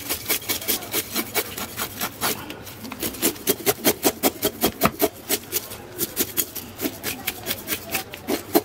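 Knife blade scraping the scales off a reef cod on a wooden cutting board in repeated rasping strokes. The strokes are sparse at first, then come quick and even, about five a second, from about three seconds in.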